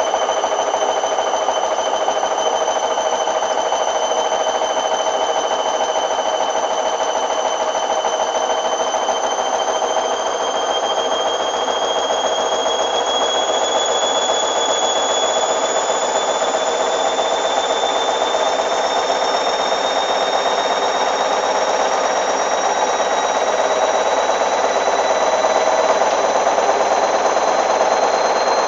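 Hoover Dynamic washing machine spinning, its motor whine slowly rising in pitch as the drum speeds up, over a steady loud rushing and rattling.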